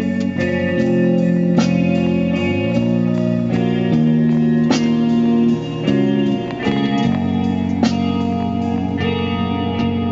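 Instrumental passage of a song, led by guitar, with regular drum hits.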